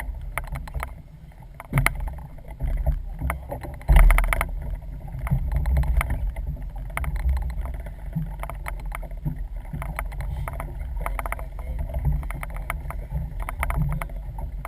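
Small fishing boat on the water: a steady low rumble of wind and water with scattered knocks and clicks, and a loud thump about four seconds in.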